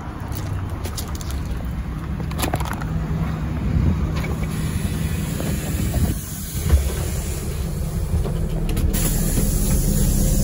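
NefAZ-5299 city bus heard from inside the cabin while driving: a steady low engine hum with road noise that grows louder as the bus picks up speed. A few short clicks or rattles come through about two and a half seconds in and near the end.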